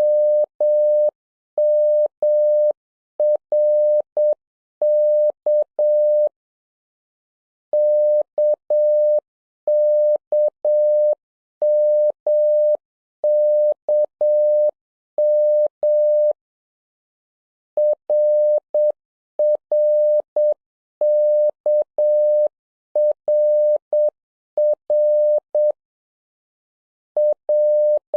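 Morse code practice tone: a single steady mid-pitched beep keyed into dots and dashes, sending the letters K, M and R in short groups with brief pauses between them and a longer break about every ten seconds.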